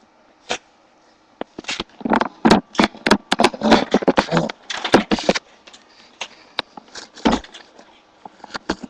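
Springer spaniel scrabbling and rolling in a blanket on the floor of a wire crate: a burst of rustling scrapes and knocks from about two to five seconds in, then one heavy thump a little after seven seconds.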